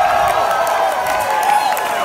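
Concert audience cheering and applauding between songs, with a held tone that bends up and down in short arcs over the crowd noise.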